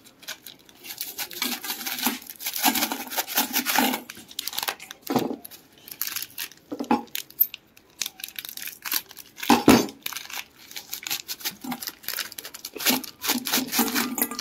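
Plastic biscuit wrappers crinkling and being cut open with large scissors, with a few short knocks as things go into a steel bowl, the loudest about ten seconds in.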